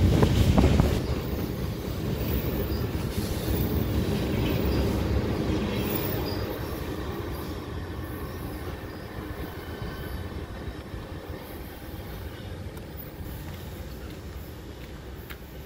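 Tail end of a long freight train rolling past on the rails: steel wheels rumbling and clattering, with a faint high wheel squeal. It is loudest about a second in, then fades steadily as the last car goes by and draws away.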